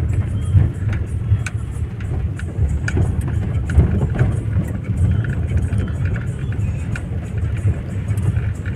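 A car driving on a wet road, heard from inside the cabin: a steady low rumble from the engine and tyres, with scattered light ticks.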